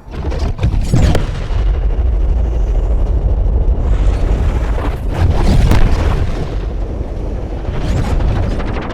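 Layered explosion-style sound effects: a heavy, continuous low rumble broken by sharp booming impacts, with hits about a second in, a cluster around five seconds and another near the end.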